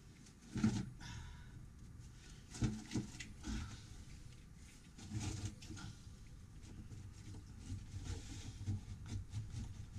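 Hands working through oily sludge in a sailboat's bilge: irregular knocks, scrapes and wet handling noises, with a few louder knocks scattered through.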